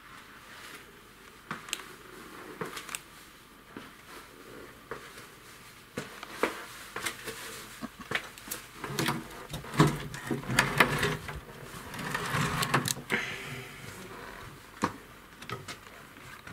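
Irregular clicks and knocks with bouts of rustling, like handling and movement close to the microphone in a small room.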